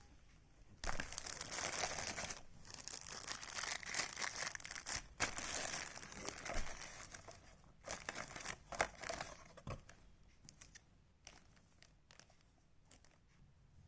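Packaging crinkling and rustling in uneven bursts as it is handled and unwrapped, with a few sharper crackles. The sound dies down to occasional small clicks about ten seconds in.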